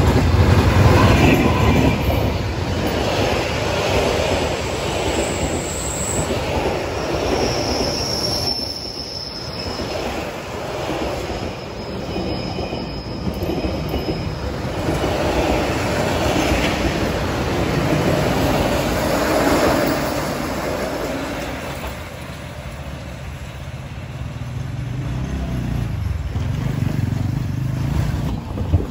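D19E diesel-electric locomotive passing close by, loudest about a second in, followed by a long string of passenger coaches rolling past with their wheels rumbling on the rails. Brief high wheel squeals sound over the rumble between about 5 and 14 seconds in.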